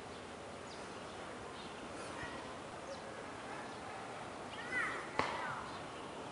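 Outdoor ambience: a steady background hiss with scattered faint, short bird chirps, a louder curved call a little before five seconds in, and a single sharp click right after it.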